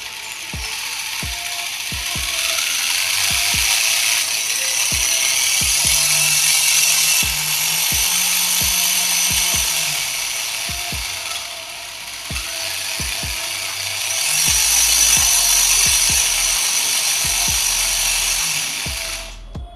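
Homemade plastic-gear RC car gearbox, powered from a 24-volt battery through a speed controller, running on test: a loud, high-pitched gear whine and rattle with repeated clicks. It swells and eases twice as the speed changes and stops abruptly near the end.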